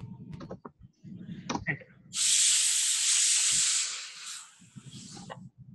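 A few keyboard key clicks, then a loud steady hiss that starts abruptly about two seconds in and fades out about two seconds later.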